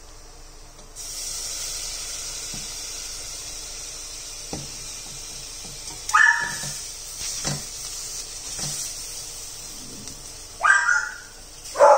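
Hot saucepan sizzling steadily as milk is poured into the onion-and-flour roux, with a wooden spoon knocking against the stainless steel pan a few times. A small dog yaps briefly about halfway through and again near the end.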